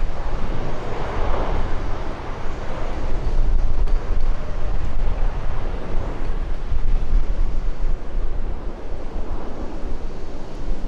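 Jet airliner engines rumbling as an aircraft passes the airport, a steady noisy roar with a swell about a second in, and wind buffeting the microphone.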